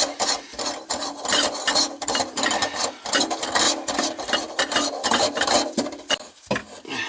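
A gloved hand spinning the locknut up the threaded body of a stainless steel kitchen sink basket strainer, tightening it to seat the plumber's putty seal. It makes a rapid, uneven run of scraping and rubbing strokes, metal on metal.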